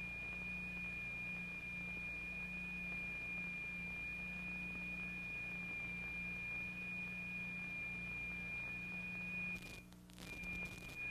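A steady, high pure tone, the sine-wave signal that sets the vibrated particles in motion, over a low hum. About nine and a half seconds in the tone cuts out for under a second with a few clicks, then comes back.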